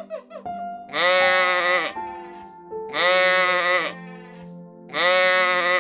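Three loud bleats, each about a second long and about two seconds apart, over steady background music.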